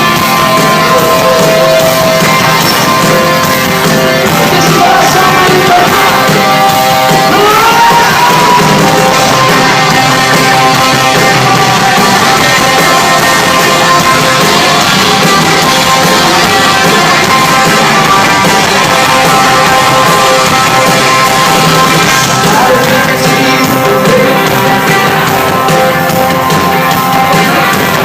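Live rock band playing loud in a large hall: electric guitars and drums with a singer's voice.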